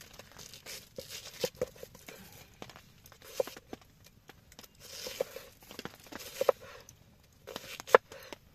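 Irregular sharp knocks, each with a short ring, amid rustling and tearing noises; the loudest knock comes near the end.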